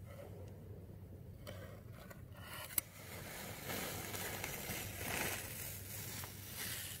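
Masking (crepe) tape being peeled up off a concrete floor on both sides of a freshly sealed expansion joint. After a faint start and one sharp click, a drawn-out rasping peel runs for the last few seconds, swelling and easing as the tape comes away.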